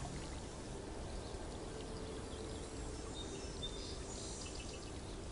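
Steady outdoor background noise with a few faint, high bird chirps a few seconds in.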